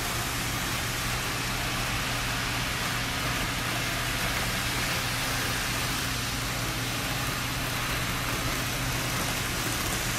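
Model W7/E7-series Shinkansen train running on a layout's viaduct track: a steady whir and rail rumble, with a constant low hum underneath.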